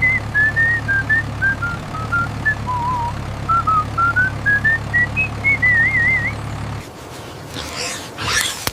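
A steady low engine hum with a simple tune of short, pure high notes over it, wandering down and back up and ending in a warble. The hum stops suddenly about seven seconds in, giving way to scratchy rustling.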